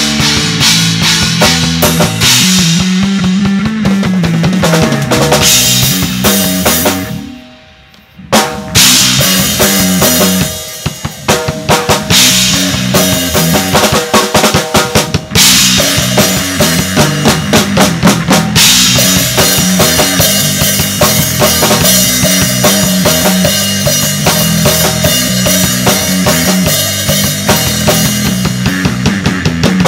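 Drum kit and electric bass guitar playing loud instrumental rock together. The sound drops out briefly about a quarter of the way in, then the drums and bass start again.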